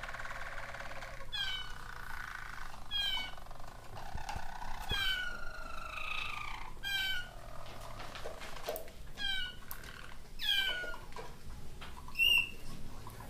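Harz Roller song canary singing. It opens with a rolling trill, then gives a series of about six falling whistled notes spaced one to two seconds apart, with a short sharp high note near the end.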